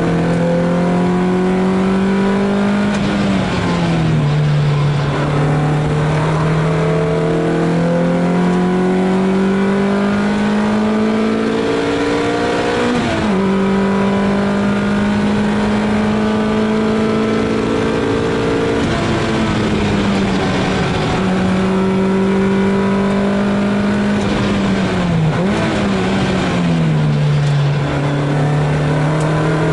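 Lotus Elise S2's Rover K-series four-cylinder engine heard from inside the cabin, working hard at high revs on track. Its note climbs slowly under load, then drops sharply about four times as the driver changes gear or lifts for corners.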